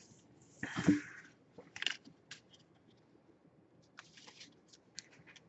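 Pokémon trading card booster packs and cards being handled, with a crinkling rustle about a second in, then a few small clicks and faint rustles.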